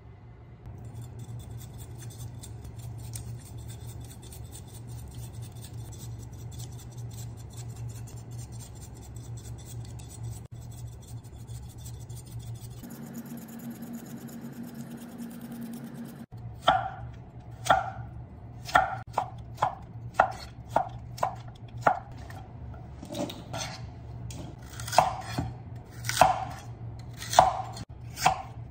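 A kitchen knife chops lotus root on an end-grain wooden cutting board, with sharp strokes about two a second through the second half. These follow a stretch of fast, faint scraping ticks over a steady low hum.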